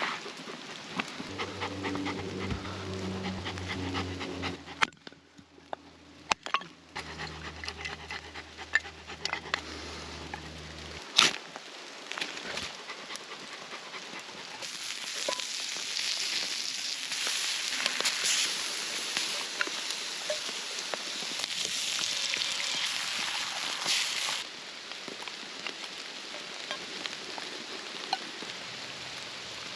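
A Bernese mountain dog panting, with scattered small clicks and knocks. A low steady hum runs through roughly the first ten seconds. From about fifteen to twenty-four seconds a steady hiss rises over everything, then cuts off suddenly.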